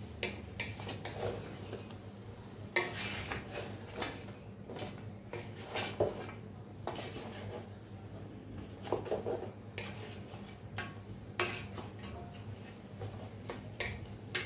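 A spatula scrapes and knocks against a coated cooking pot while stirring pieces of rib meat. The scrapes come in irregular strokes, with several sharper clacks.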